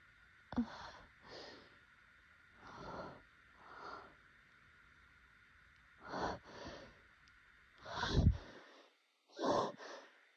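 Allergy sneezing fit: a run of short, breathy bursts coming mostly in pairs, with the loudest, heaviest sneeze about eight seconds in.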